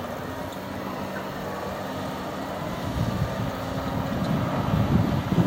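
Crawler bulldozer's diesel engine running and its tracks moving. About three seconds in it gets louder and rougher as the machine works at the edge of the bank.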